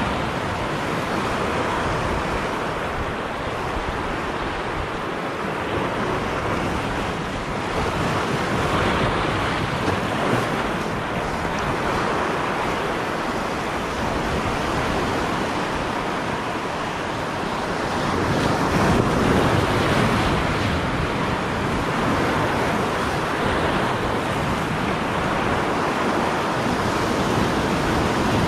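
Sea waves breaking and washing over shoreline rocks, a continuous surf rush that swells louder twice as bigger waves come in, with wind buffeting the microphone.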